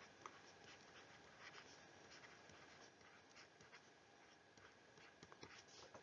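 Near silence, with faint scratches and taps of a stylus writing on a tablet.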